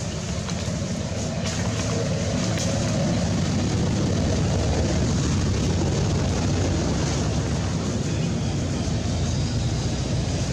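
Steady low rumbling noise with a hiss over it, growing a little louder over the first couple of seconds.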